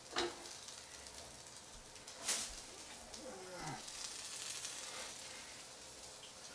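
Folded flour tortilla sizzling in a frying pan, a steady hiss, with two sharp knocks, one just after the start and a louder one about two seconds in.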